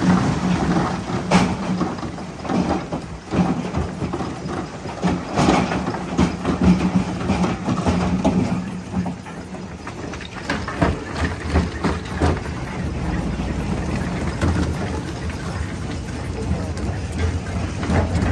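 Jaw crusher running, rocks cracking and knocking as they are crushed, over the machine's steady low drone, which shifts lower about halfway through.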